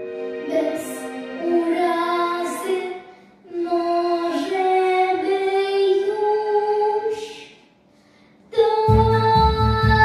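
A young girl singing a pop song into a microphone in two phrases over light backing. After a short pause near the end, the full backing track comes back in with a strong bass.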